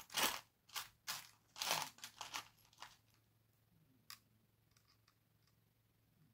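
Small seashells being handled and set on a wooden frame by hand: a quick run of short scrapes and rustles, then a single sharp click about four seconds in and a few faint ticks.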